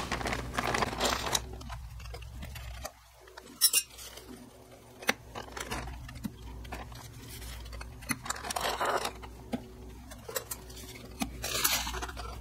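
Clutch friction discs and steel plates clinking against each other and the metal clutch hub as they are stacked on one by one, with short rustles of the plastic bag the oil-soaked discs are taken from.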